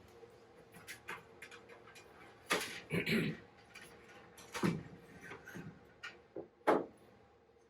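Internal rear panel being slid into place and handled: scattered clicks, knocks and light scrapes, with a handful of louder knocks, over a faint steady hum.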